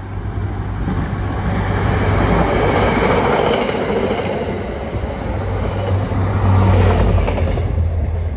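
MBTA commuter rail train passing close by, its coaches rolling over the rails, pushed by a diesel locomotive at the rear. The noise builds over the first few seconds and is loudest about seven seconds in, as the locomotive goes by, then starts to fade.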